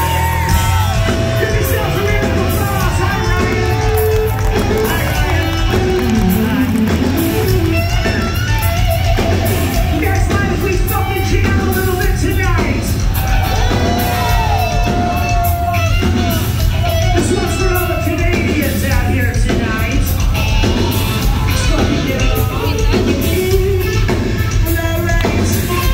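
Live hard rock band, with distorted electric guitars, bass and drums under a male lead singer, heard from within the crowd in a large hall.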